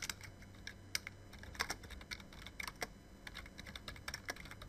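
Typing on a computer keyboard: a run of uneven key clicks, several a second.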